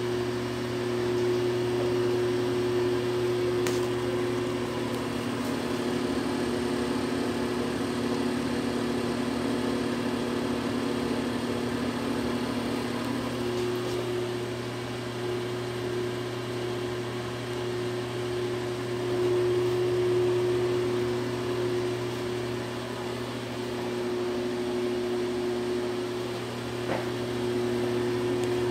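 Broan ceiling exhaust fan running: a steady motor hum with a low tone and a higher tone over the rush of moving air.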